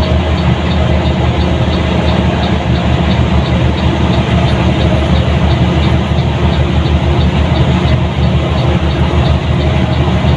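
Diesel engine of a front-engined Mercedes-Benz 1623 bus, running steadily under way, heard inside the bus, with a faint regular ticking.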